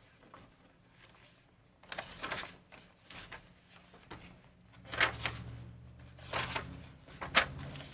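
Paper pages of a handmade journal being turned and smoothed by hand: several brief rustles and flaps, the loudest about five seconds in, over a faint steady hum.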